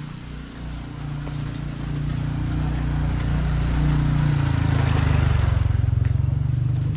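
A motor vehicle engine running close by, growing steadily louder over the first five seconds or so and then easing slightly, like a vehicle drawing near and passing.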